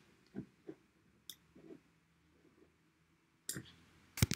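Computer keyboard keys clicking one at a time with pauses between: a few faint taps, then a louder cluster near the end.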